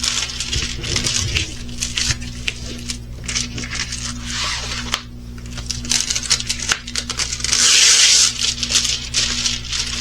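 Plastic packaging of a diamond painting kit crinkling and rustling as the kit and its canvas are handled, with small clicks throughout and a louder stretch of crinkling about eight seconds in.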